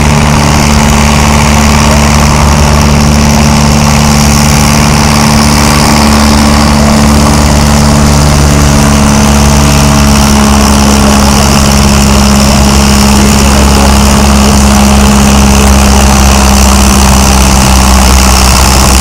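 Farm tractor's diesel engine running hard at a steady pitch under full load, pulling a weight sled.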